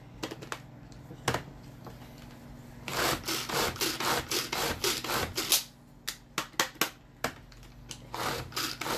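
Hand-powered food chopper chopping small carrot pieces. After a few clicks, it gives a quick run of rasping strokes as the blades spin, then several shorter runs.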